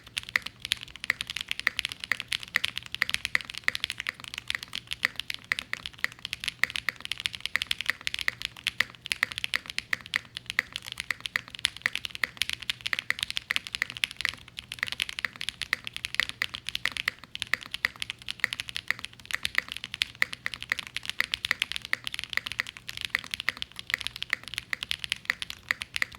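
Fast continuous typing on an IQUNIX Zonex75 custom mechanical keyboard with stock Gateron Summertime switches, GMK keycaps and an FR4 plate, a dense run of keystroke clacks with a brief lull about halfway through.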